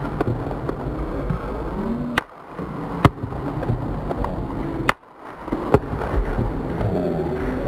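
Rifle gunfire picked up by a podium microphone and slowed to quarter speed: sharp cracks stand out twice, about 3 and 5.7 seconds in. Each shot is a snick from the bullet's supersonic shockwave passing the microphone, followed by the gun's echoing report. Slowed, dragged-out crowd noise runs underneath.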